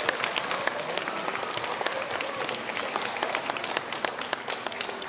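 Audience applauding, many hands clapping in a dense, irregular patter that slowly fades toward the end.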